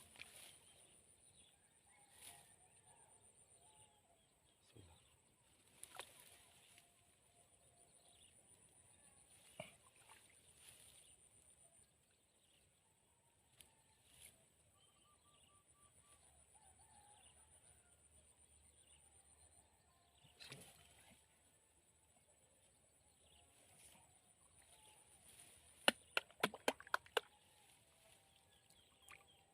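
Near-silent night swamp ambience: a faint steady high-pitched tone with scattered faint short calls and clicks. About three-quarters of the way through comes a quick run of about six sharp clicks.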